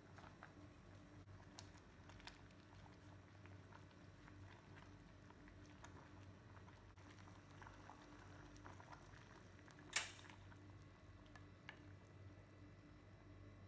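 Faint bubbling of a pot simmering on the stove: scattered small pops and ticks over a low steady hum, with one sharp click about ten seconds in.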